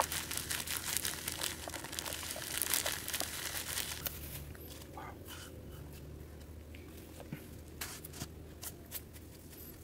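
Thin plastic bag crinkling and rustling as dried chili flakes are shaken out of it into a coconut-shell bowl. The rustling dies down about four seconds in, leaving only scattered faint clicks.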